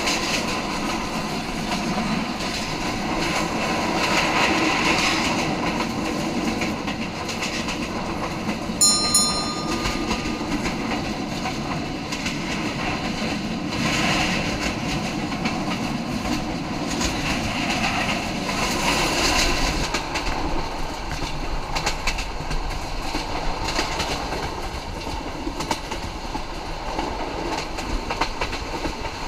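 Passenger train running, heard from on board: a steady rumble with the clickety-clack of wheels over rail joints. A brief high tone sounds about nine seconds in.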